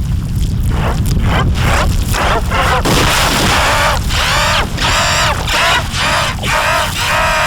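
Cartoon soundtrack effects: a continuous low rumble with a string of short, high, squeaky cries over it, coming faster and denser in the second half.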